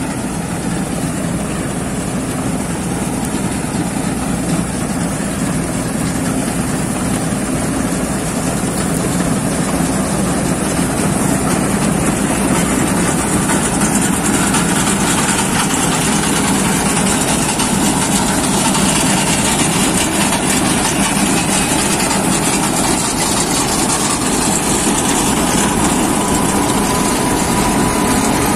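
Bizon Rekord Z058 combine harvester running while harvesting: its diesel engine and threshing machinery make a steady mechanical din that grows gradually louder as the combine comes up close.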